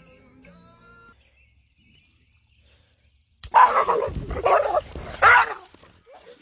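Dog barking loudly several times in quick succession, starting about halfway through after a near-silent gap.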